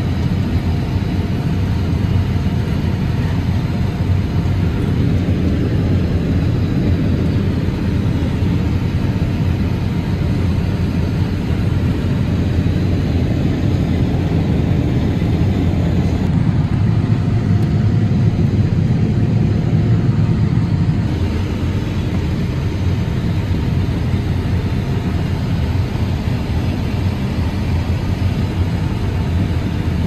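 Large farm machine's diesel engine running steadily under load, a low rumble that grows a little louder for a few seconds past the middle.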